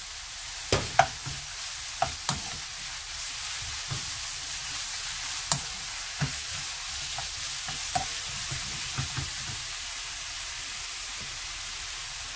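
Oyster mushrooms sizzling steadily in hot oil in a nonstick wok while a wooden spatula stirs and tosses them. The spatula knocks sharply against the pan several times during the first several seconds, then only the sizzle goes on.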